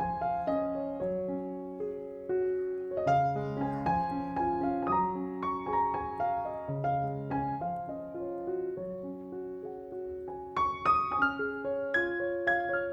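Background piano music: a gentle melody over soft chords, with a louder run of high notes about eleven seconds in.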